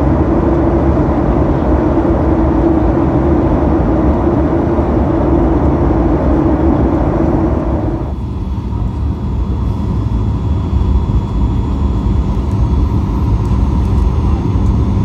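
Cabin noise beside the wing of a Boeing 737 MAX 8 in flight: a steady rumble of the CFM LEAP-1B turbofan and airflow with a strong droning hum. About eight seconds in it changes abruptly to a somewhat quieter steady rumble without the drone, as the aircraft is low on approach.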